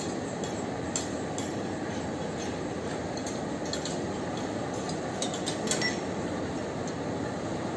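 A steady low rumbling noise with scattered light metallic clinks, several of them close together about five to six seconds in.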